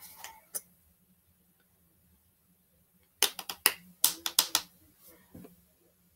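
Makeup brush and eyeshadow palette being handled: a couple of light clicks at first, then, about three seconds in, a quick run of about eight sharp taps and clicks over a second and a half.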